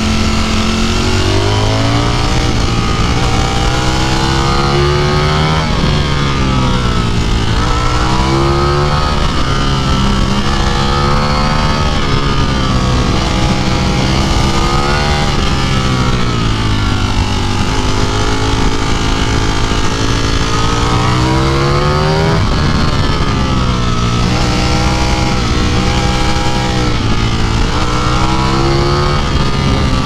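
Ducati Streetfighter V4 S's V4 engine heard onboard, accelerating and backing off over and over through the bends. Its pitch climbs in long sweeps and drops sharply each time the throttle closes.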